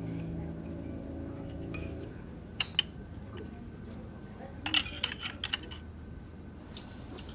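A sustained musical chord fades out over the first two seconds, followed by a few light clicks and a quick run of clinks about five seconds in, with a short hiss near the end.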